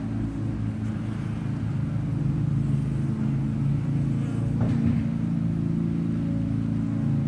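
Steady hum of many honeybees buzzing around an opened hive, a droning tone of several layered pitches.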